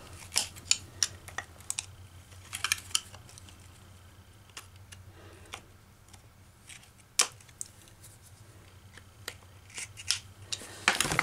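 Screwdriver tip scraping and clicking against the armature shaft and retaining clip of an electric cooling fan motor as the clip is pried at: scattered small metallic clicks, with a sharper one about seven seconds in.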